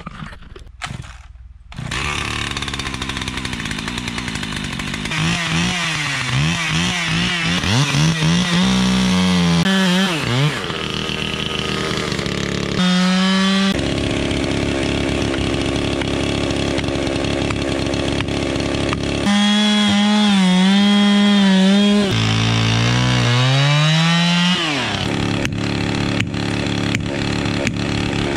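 Husqvarna two-stroke chainsaw running from about two seconds in and cutting into the base of a standing tree to fell it. Its pitch repeatedly sags and climbs again as the chain loads in the wood, with stretches of steady high revving between.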